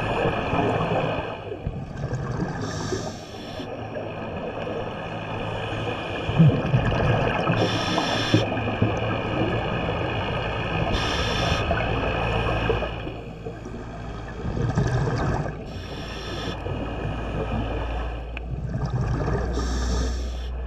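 Scuba breathing heard underwater: a regulator hiss on each inhale every three to four seconds, with bubbling between, over a steady mechanical hum. A low rumble builds near the end.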